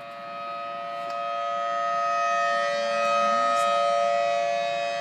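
Outdoor warning siren sounding its scheduled monthly test: a steady chord of several held tones. It swells louder over the first three seconds and then eases off a little.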